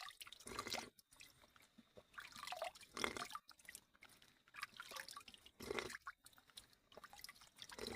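Water at a natural spring dripping and splashing in irregular spurts.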